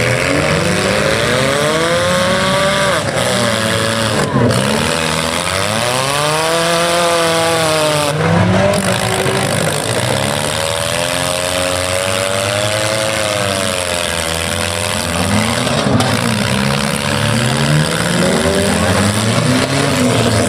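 Several stock compact-car engines revving hard in a demolition derby, their pitch rising and falling again and again as the cars accelerate, back up and push against each other.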